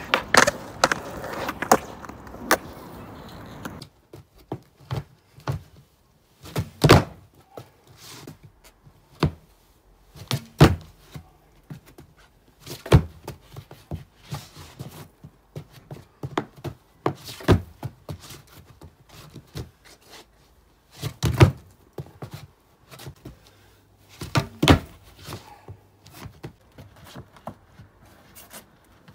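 Skateboard deck popping and landing: repeated sharp clacks and thuds of the wooden board striking hard ground, spaced a few seconds apart and sometimes in quick pairs.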